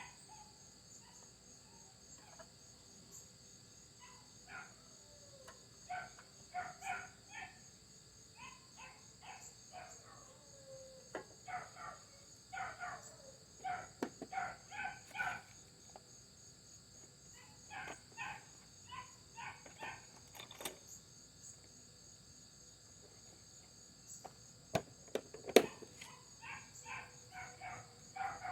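A dog barking and whining in short repeated bouts, upset at being shut away from its owner. A steady high-pitched insect-like buzz runs underneath, and a few sharp knocks sound, the loudest near the end.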